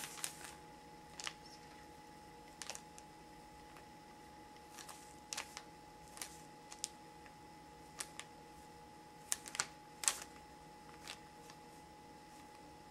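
Light, sharp clicks of typing on a ZTE Score's touchscreen keyboard, about a dozen taps spaced unevenly, often a second or more apart, over a faint steady hum.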